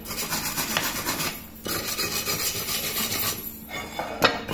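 Steel wire brush scrubbing the aluminium lid of an old Marmicoc pressure cooker back and forth, a fast scratchy rasping to clean the metal, with short breaks about a second and a half and three and a half seconds in.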